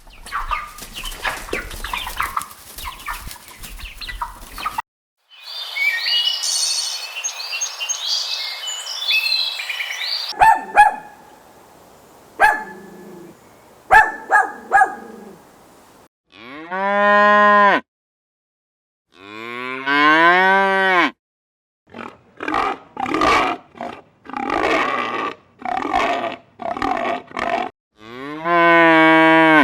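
Cattle mooing: long drawn-out moos about sixteen and twenty seconds in and again near the end, with a run of shorter calls between. The first half holds other sounds instead: a rough noisy stretch, then dense high chirping, then a few sharp clicks.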